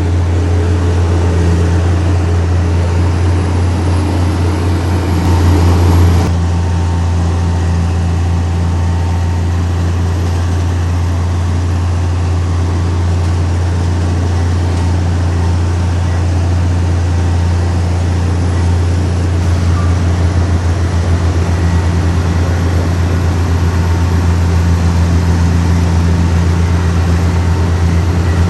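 Heavy diesel earthmoving machinery running steadily with a deep, constant engine drone. About five seconds in, a louder rush of noise swells briefly and cuts off suddenly.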